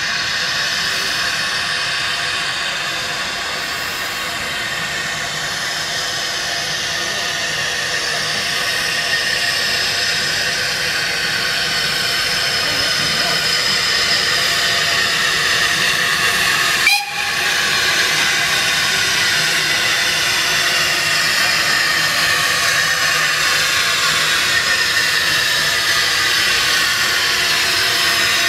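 Peckett 0-4-0 tank steam locomotive drawing slowly closer, with a steady hiss of steam that grows louder as it nears. A sharp click about two-thirds of the way through.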